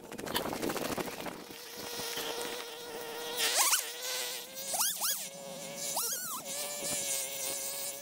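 Stihl chainsaw idling with a steady whine, its throttle blipped to a quick rev three times in the second half, each rev rising and falling back to idle. Boots crunching through deep snow in the first few seconds.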